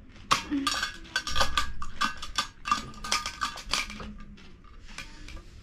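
Metal cutlery and dishes clinking: a quick run of ringing clinks, busiest in the first four seconds and thinning out towards the end.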